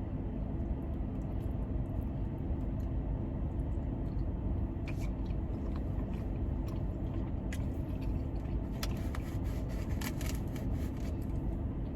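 Steady hum of a car's air conditioning running inside the cabin, with faint scattered clicks and mouth sounds of someone eating.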